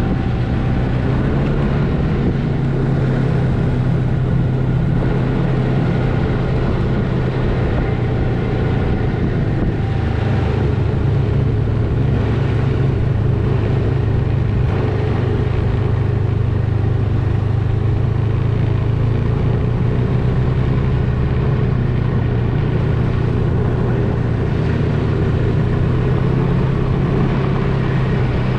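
Snowmobile engine running steadily at cruising speed, heard from on board the moving sled.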